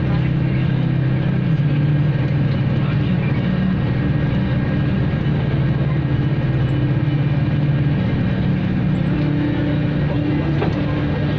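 Jet airliner's engines running steadily as the aircraft taxis, heard inside the cabin as a continuous hum whose pitch shifts slightly now and then.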